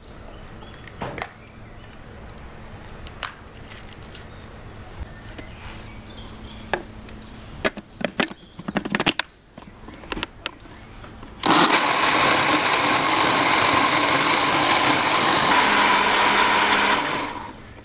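Clicks and knocks as vegetables go into a countertop blender jar and the lid is fitted. Then, about eleven seconds in, the blender runs steadily for about six seconds, puréeing tomatoes, garlic and hot peppers into a sauce, and stops just before the end.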